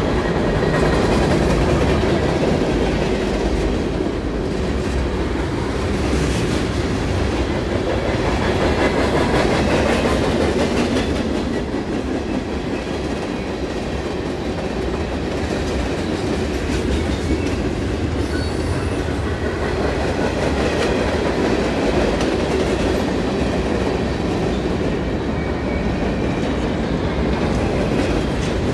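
A CSX mixed freight train's cars (boxcars, tank cars and covered hoppers) rolling past at speed: a steady rumble and clatter of steel wheels on the rails.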